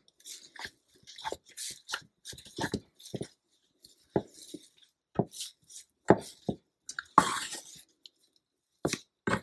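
Silicone spatula turning and pressing thick coxinha dough in a ceramic-coated frying pan, giving irregular soft knocks and scrapes against the pan. A slightly louder clatter comes about seven seconds in. The flour is being cooked into the dough.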